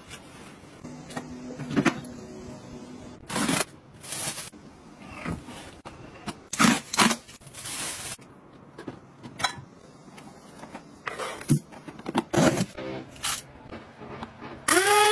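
A string of short clicks, knocks and rubbing as household gadgets are handled. Near the end an electric blade spice grinder switches on, its motor whine rising in pitch over a grinding hiss.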